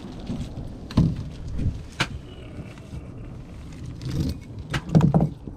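A few sharp knocks and clinks over a steady low rumble, with a louder low thump near the end.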